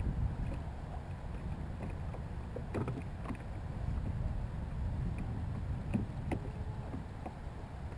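Native Slayer Propel 10 pedal kayak moving on the water: a steady low rush of wind on the microphone and water against the hull, with a few light knocks about three and six seconds in.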